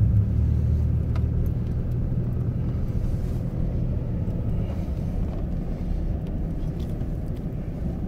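Steady low engine and road rumble heard inside the cabin of a GMC Yukon Denali driving slowly through deep snow, with a few faint clicks.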